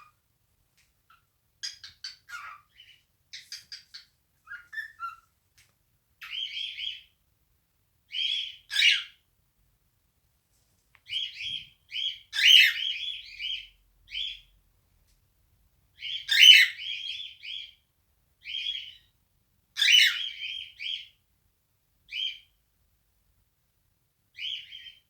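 Male cockatiel singing its natural song: short phrases of chirps and warbling whistles broken by pauses, the loudest phrases near the middle.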